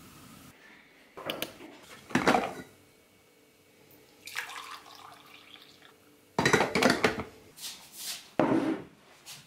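A string of short household handling sounds: knocks and clatters, and about four seconds in, coffee pouring from a coffee maker's carafe into a ceramic mug.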